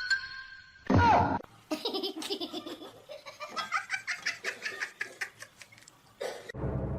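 Laughter: a quick run of laughs lasting about four seconds, after a short loud sound with a falling pitch about a second in.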